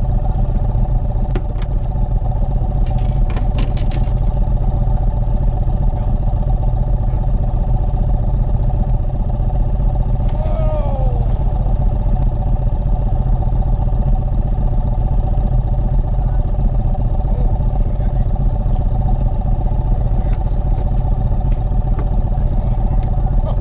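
Boat's outboard motor running steadily at low speed, with a few light clicks around three seconds in.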